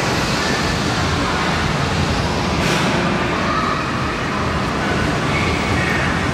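Steady din of an indoor amusement arcade: game machines and rides blending into a constant loud noise, with faint electronic game tones now and then.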